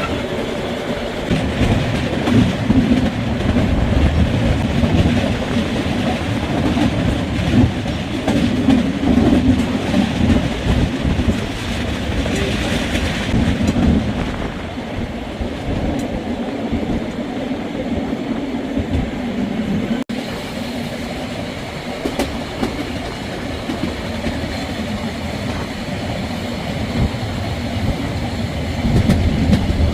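Moving train running along the track: a steady rumble of wheels on the rails.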